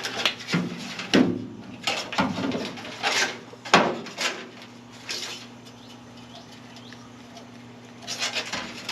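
Objects being handled and shifted about, short scrapes and knocks as things are set down and repositioned, with a quiet spell in the middle and more handling near the end. A low steady hum runs underneath.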